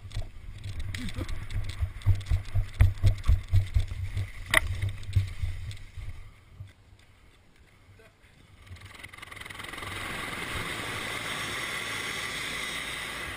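Heavy rhythmic thumps, about three a second, of a helmet-camera wearer running with gear jostling, with one sharp click. After a short lull, steady helicopter noise builds in: a rushing hiss with a faint high whine.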